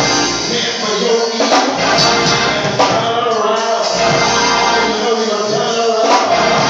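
Live gospel music playing in a church sanctuary, with percussion clicks scattered through it.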